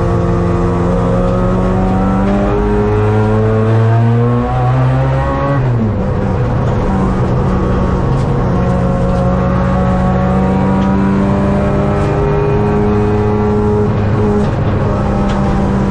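Race car engine heard from inside the cockpit, revving up under load with its pitch climbing for about five seconds, then the revs drop sharply and it runs on at a fairly steady pitch with small rises and dips.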